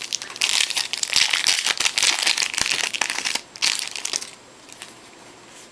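Trading-card pack wrapper crinkling and tearing as it is opened by hand, in dense crackling for about three and a half seconds. A shorter burst follows, then only a few faint ticks.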